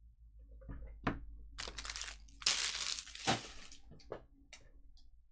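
Plastic trading-card pack wrappers crinkling and tearing open in a series of rough bursts, loudest about two and a half to three seconds in.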